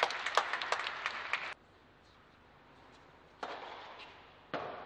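Tennis crowd applauding after a point, with many sharp claps, cut off abruptly about a second and a half in. Near silence follows, then a short burst of crowd noise about three and a half seconds in that fades away.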